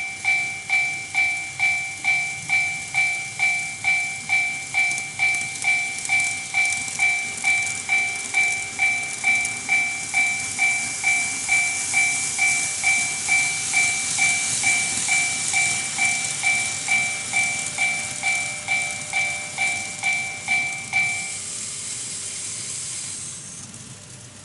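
TOMIX Automatic Level Crossing II model crossing sounding its warning bell, an even two-tone ding about twice a second, which stops about 21 seconds in. Under it, a model train running over the track makes a high hiss that swells and fades out shortly after the bell stops.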